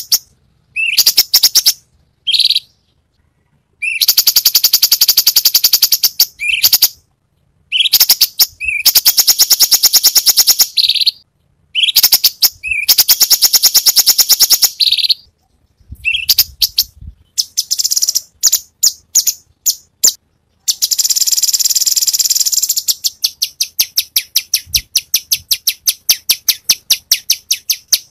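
Cucak cungkok songbird singing in loud phrases of very fast repeated notes, the rapid-fire 'tembakan' calls, each phrase one to three seconds long with short pauses between. Over the last few seconds the notes run on without a break as a fast steady chatter.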